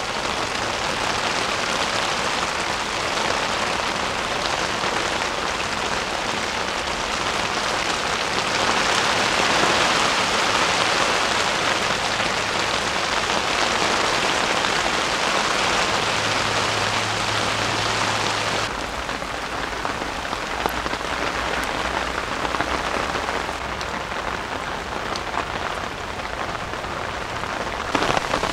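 Heavy rain pattering on a tent, a steady, dense hiss that drops a little in level about two-thirds of the way through.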